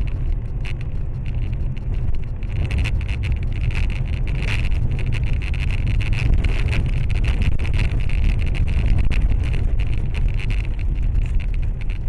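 Steady low rumble of a car driving along a snow-covered road, heard from inside the cabin through a dash camera's microphone, with a constant high hiss and many small clicks and rattles throughout.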